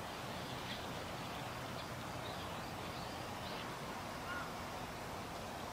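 Steady outdoor background hiss with faint, scattered bird calls: several short chirps through the first few seconds and a brief higher call about four seconds in.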